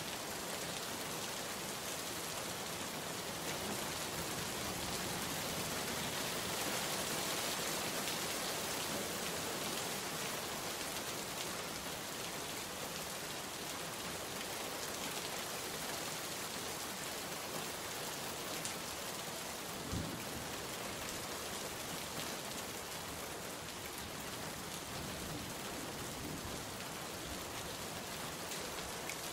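Steady rain falling and pattering on surfaces, an even dense hiss of drops, with one brief low thump about two-thirds of the way through.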